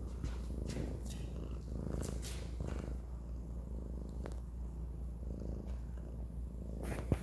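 Domestic cat purring steadily, a rough low rumble close to the microphone, with two sharp clicks near the end.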